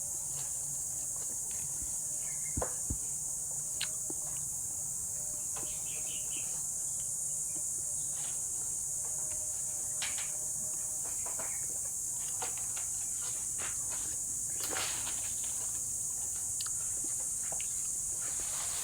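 A steady, high-pitched chorus of insects, crickets or cicadas, droning without a break, with scattered light clicks and knocks over it.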